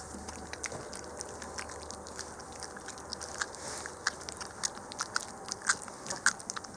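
Shiba Inu chewing and biting raw brown bear meat: a run of irregular wet clicks and crunches, louder and more frequent in the second half.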